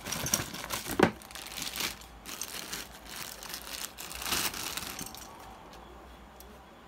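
Clear plastic packaging bag crinkling and rustling as a spray gun is handled and pulled out of it, with a sharp knock about a second in; the rustling dies down after about five seconds.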